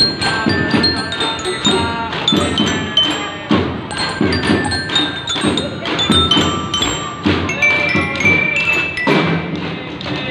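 Children's drum band playing: metal-bar glockenspiels struck with mallets ring out notes at changing pitches over a steady beat of small snare drums.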